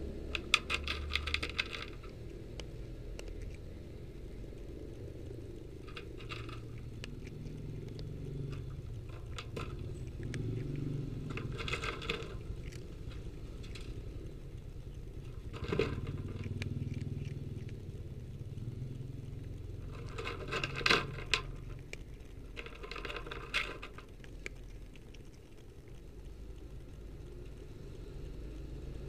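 A cat crunching dry kibble, in short bursts of chewing every few seconds, over a steady low rumble.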